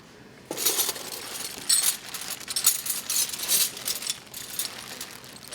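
Snap-on metal hand tools clinking and rattling against each other in a tool box drawer as they are handled, a quick run of sharp clinks starting about half a second in.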